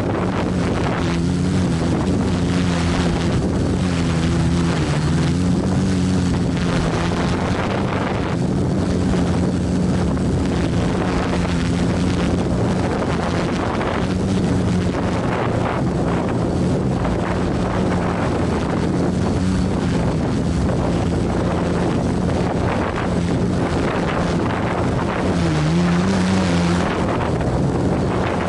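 Quadcopter's electric motors and propellers humming, heard from the camera on the craft, with strong gusty wind buffeting the microphone. The hum wavers in pitch as the motors hold the craft in place in loiter mode against the wind, rising briefly near the end.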